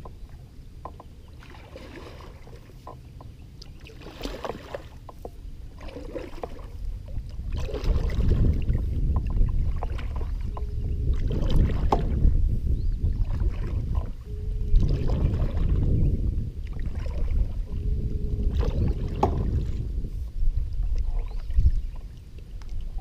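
Double-bladed kayak paddle stroking through lake water as a sit-on-top fishing kayak is paddled along, a swish of water at each stroke, over a low rumble that grows louder about eight seconds in.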